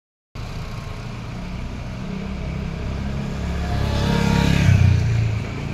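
A motor scooter passes close by, its engine growing louder to a peak a little over four seconds in and then fading, over the steady low rumble of an idling vehicle engine.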